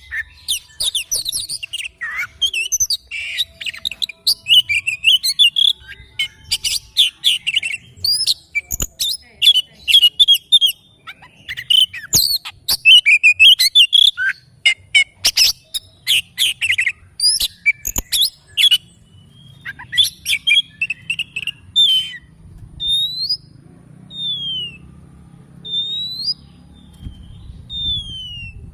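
Oriental magpie-robin singing a rapid, varied song of chirps, trills and sharp clicks, which thins out after about twenty seconds into a few separate downward-sliding whistles.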